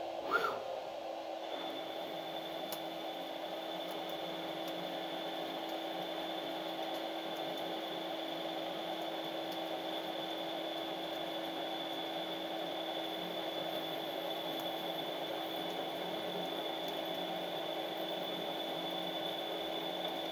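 TRAK 1630 CNC lathe boring the inside of a spinning part with a turret-mounted boring bar: steady machining hum, with a high thin whine of the cut setting in about a second and a half in. A brief sharp sound comes just before the whine starts.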